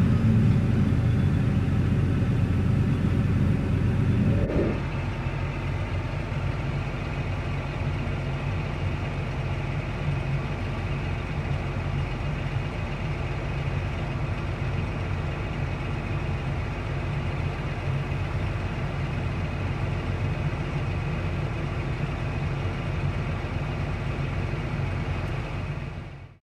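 Tractor engine running steadily, heard from the driver's seat in the cab. The sound drops to a lower, even level about four and a half seconds in and fades out near the end.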